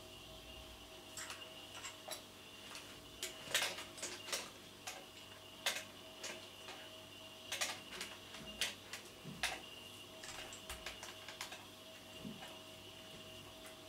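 A cat licking its fur while grooming: irregular, wet-sounding clicks and smacks, some in quick clusters, a few louder than the rest.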